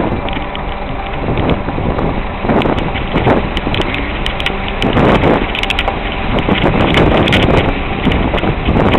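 Vehicle driving over a wet, rutted dirt track: engine running under a continuous rumble of the ride, with repeated jolts and knocks as it goes over the bumps. Wind buffets the microphone.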